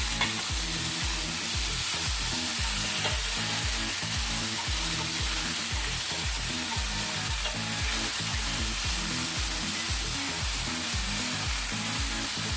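Chopped tomatoes sizzling in hot oil in a frying pan with sautéed garlic, ginger and onion, a steady frying hiss as the pan is stirred.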